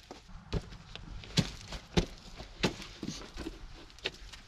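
A series of sharp knocks, about five, unevenly spaced, the loudest near the middle.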